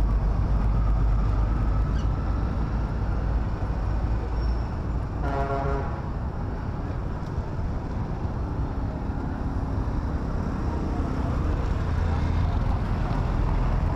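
Busy street traffic: a steady rumble of engines. A vehicle horn sounds once, briefly, about five seconds in.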